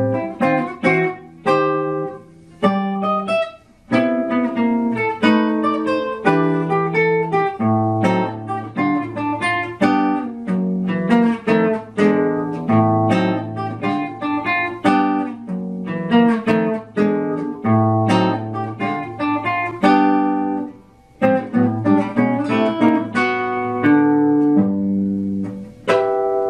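Solo acoustic guitar playing a jazz swing piece in chord-melody style: a continuous run of plucked chords and melody notes. Near the end a final chord is struck and left ringing.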